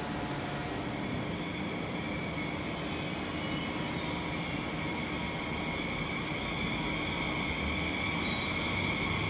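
Frecciarossa 1000 (ETR400) high-speed electric train starting to pull out of the platform, its electric drive giving a steady whine of several high tones over a rushing noise that grows slowly louder.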